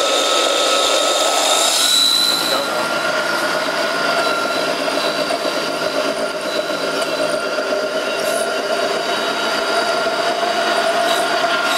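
Peanut grinder machine running steadily while grinding peanuts into peanut butter: a loud, constant high whine with a rough grinding noise beneath it. The pitch shifts slightly about two seconds in.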